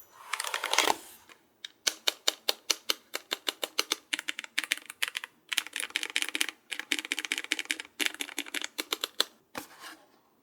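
Rapid typing on a low-profile mechanical keyboard: quick runs of sharp key clicks with short pauses between them, after a brief rustle at the start.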